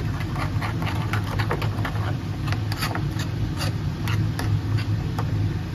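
Metal spoon stirring a thick yogurt-and-spice marinade in a bowl, with many quick scrapes and clicks of the spoon against the bowl, over a steady low hum.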